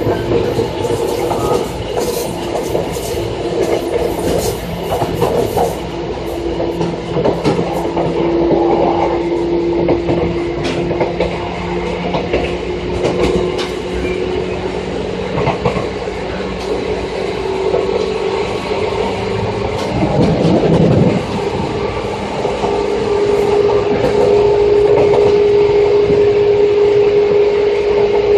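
Seibu 2000-series electric train (set 2453F) running, heard from inside the car: a steady motor and gear whine that slowly rises in pitch as the train gathers speed, with rail-joint clicks and a brief rush of noise about two-thirds of the way through.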